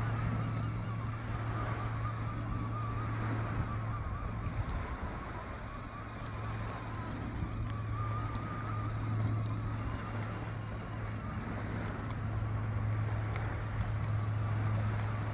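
Steady low motor hum with a fainter wavering whine above it.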